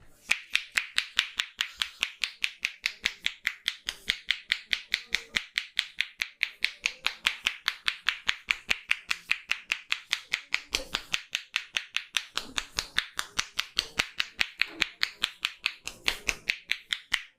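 A barber's hands making a rapid, even series of sharp clicks, about five a second, as part of a percussive head massage.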